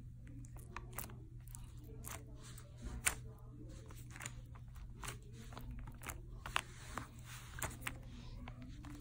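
Fingers poking and pressing a watery, jiggly slime, making faint, irregular squishy clicks and pops, a few a second, with one louder pop about three seconds in.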